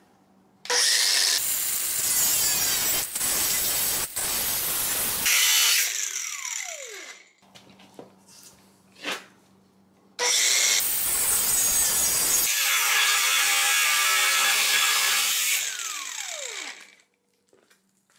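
Cordless angle grinder with a cut-off disc cutting through a steel exhaust pipe beside the catalytic converters, in two cuts of about five seconds each. After each cut the trigger is released and the disc spins down with a falling whine.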